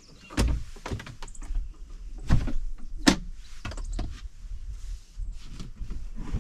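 A small plastic cooler box and storage boxes being handled: a series of knocks, thuds and scrapes as the cooler is lifted off a box and set down on the camper floor, with several sharp knocks about half a second to a second apart.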